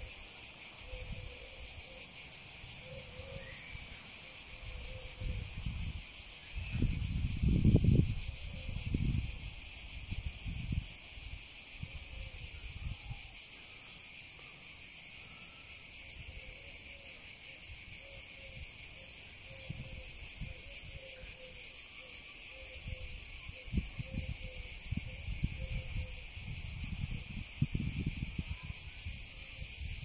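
Cicadas singing in a continuous, steady high-pitched buzz. Low rumbles on the microphone come and go beneath it, loudest about seven to nine seconds in and again near the end.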